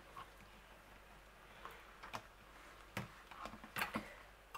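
Spoon and fingers working puréed beetroot over a blown-out egg in a plastic tub: a few faint, scattered clicks and soft taps, more of them in the second half.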